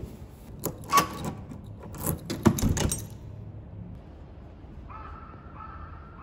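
Clicks and knocks of a door's handle and latch being worked as the balcony door is opened, a handful of sharp clacks in the first three seconds. Near the end come two long, even-pitched calls, one after the other.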